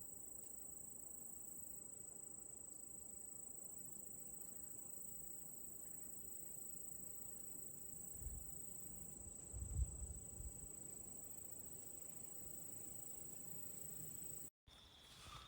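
Insects trilling: one steady high-pitched buzz, with a couple of faint low bumps about eight and ten seconds in. It cuts off abruptly near the end.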